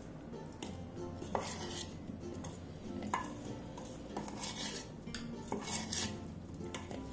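Steel spoon scraping and clinking against a stainless steel bowl in irregular strokes, stirring steamed cauliflower florets through a thick flour-and-spice coating.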